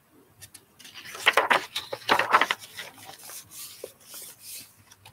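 Pages of a hardcover picture book being turned and the book handled close to the microphone: a papery rustle and rub, loudest for about two seconds starting a second in, then softer shuffling.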